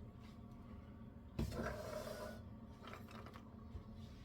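Kitchen food-prep handling: a soft knock about a second and a half in, then about a second of scraping and rustling.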